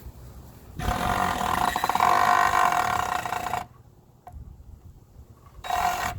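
Power drill running for about three seconds, then a shorter burst near the end, backing out a stubborn screw that is not coming out of the wood.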